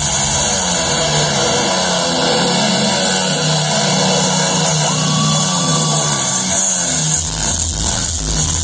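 Motorcycle engines running hard and steady as the riders circle inside a steel-mesh globe of death.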